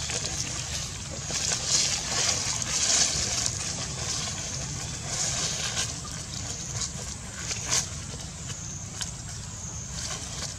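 Dry fallen leaves rustling and crackling as long-tailed macaques walk through them and handle a dry leaf, with a few sharp crackles near the end, over a steady low rumble.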